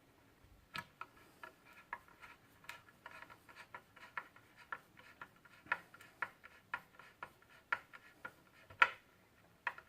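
Hand screwdriver driving a screw into walnut wood: a series of short clicks about twice a second, the loudest near the end.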